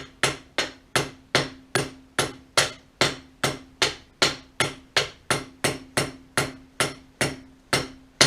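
Hammer blows on metal in a steady rhythm, about two and a half strikes a second, each with a short metallic ring, as a part is beaten through on a Cub Cadet 1200 garden tractor's driveshaft while its worn-out throw-out bearing is being removed.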